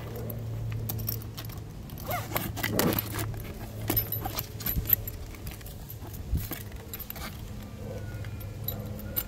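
Hands handling a Milwaukee fabric rolling tool bag and a cardboard tag pulled from it: scattered clicks, rustles and light metallic clinks from the bag's metal D-rings and hardware. A steady low hum runs underneath.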